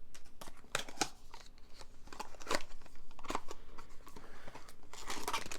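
Cardboard blind-box packaging being worked open by hand: a run of irregular clicks, snips and scrapes.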